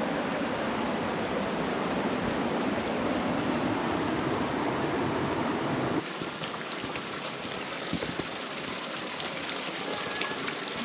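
Steady rush of flowing water. About six seconds in it drops abruptly to a softer rush with faint ticks and drips over it.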